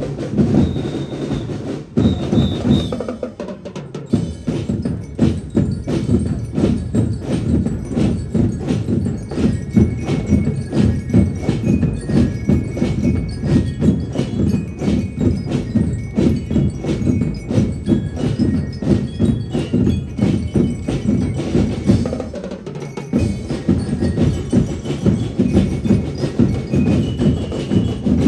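A drum and lyre corps playing live: snare and bass drums beat a steady, dense marching rhythm, while bell lyres ring out a melody above them. The drumming dips briefly twice, a few seconds in and again near the end, then carries on.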